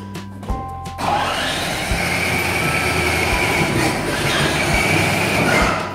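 Battery-powered ride-on toy truck driving on a concrete floor: its electric drive motors and gearboxes whine steadily while the plastic wheels rumble. The sound starts about a second in and stops just before the end.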